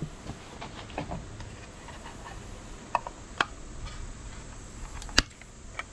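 Small, scattered plastic clicks and taps from handling and prying at the casing of a wireless wall-switch panel, with the sharpest click about five seconds in.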